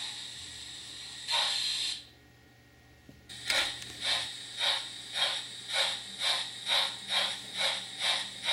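Steam-locomotive sound from a model 2-6-0 tank engine: a steady hiss with a short louder blast of steam, a brief gap, then regular exhaust chuffs at about two per second as the locomotive moves off slowly.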